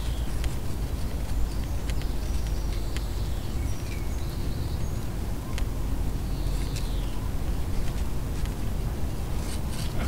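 Wind blowing and rumbling on the microphone while the louvre flaps of a wall vent tick and click now and then. A few faint, short high chirps come through the wind.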